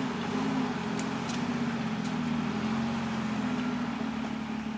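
An off-road 4x4's engine running at a steady, moderate speed, its pitch rising and falling slightly, with an even hiss over it and a couple of faint ticks about a second in.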